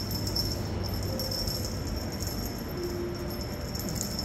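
Light jingling from a small bell on a cat wand toy as it is dangled and twitched, over a steady room hum.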